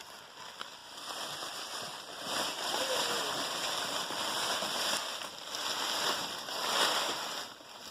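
Dry corn husks rustling as harvested ears of corn are handled and spread out to dry. The rustle is ragged and uneven, swelling and fading.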